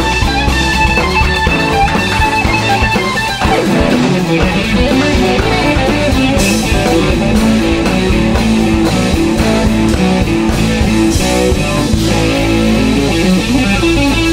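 Electric guitar played live, picking a moving melodic instrumental line over a steady low accompaniment, with the figure changing about three and a half seconds in.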